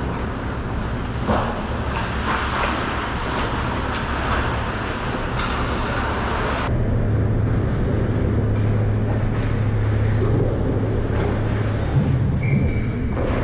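Ice hockey skates scraping and carving on rink ice over a steady low hum. The scraping dies away about seven seconds in, leaving the hum, and a single knock comes near the end.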